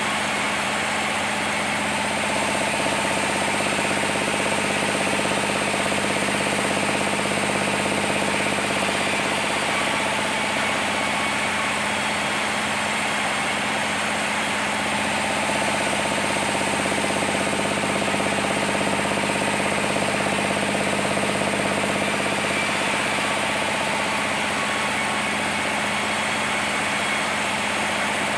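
Sawmill machinery running steadily, a constant engine-like drone with several held tones, swelling slightly in loudness twice.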